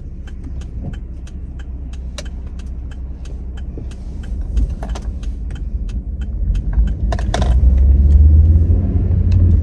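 Low engine and road rumble inside a car, growing louder over the last couple of seconds, with regular light ticks about three a second.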